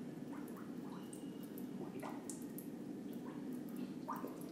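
Faint drips and small splashes of water in a hydrostatic underwater weighing tank, scattered over a steady low hum.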